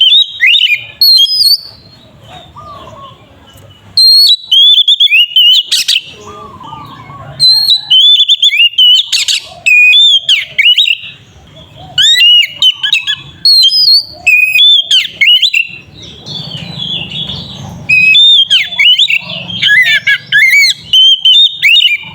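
Oriental magpie-robin (kacer) singing loudly in bursts of rapid, varied whistled notes that sweep up and down, mixed with a few harsh notes, phrase after phrase with short pauses between. It is the full, aggressive song of a bird in fighting mood, the kind played to provoke other kacers into singing.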